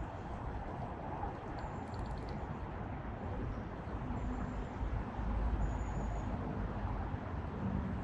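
Steady outdoor background noise: a low rumble that swells briefly midway, with a distant traffic-like hum and a few faint, short, high chirps of small birds.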